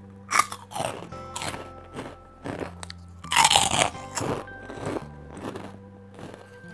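Crisp puffed pork-skin crackers crunching as they are bitten and chewed, in a series of short crackly crunches, the loudest about three and a half seconds in. Background music plays underneath.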